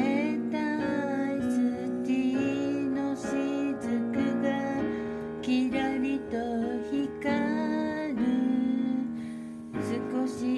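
Piano accompaniment with a woman singing over it, her held notes wavering in pitch.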